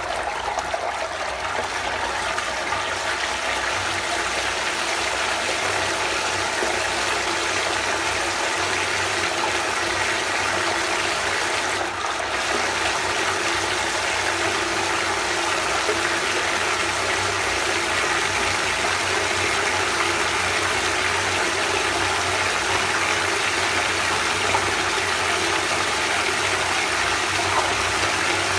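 SHYSKY DC60G-24120S-1 24 V 120 W brushless DC magnetic-drive water pump running steadily, pushing a constant rushing, splashing flow of water, with a faint steady low hum underneath.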